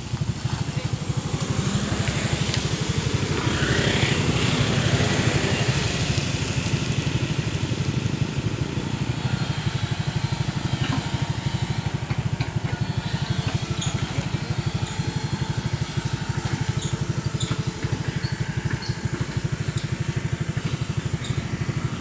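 An engine running steadily, with a fast, even pulse.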